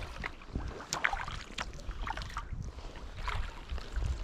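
Kayak paddle strokes in lake water: small irregular splashes and drips from the blades. Wind noise on the microphone runs underneath.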